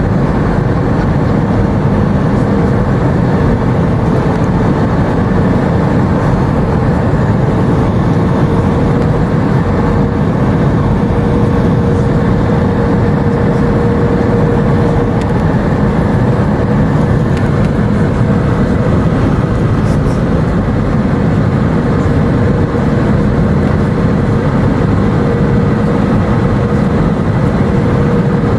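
Airbus A319 passenger cabin noise: the steady drone of the jet engines and rushing air, with a faint steady hum in it.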